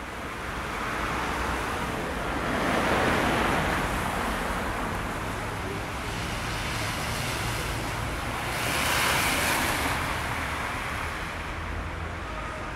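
Street traffic on a slushy, snow-covered road: a steady hiss of tyres on wet slush, swelling as vehicles pass about three seconds in and again about nine seconds in, with a low rumble of wind on the microphone.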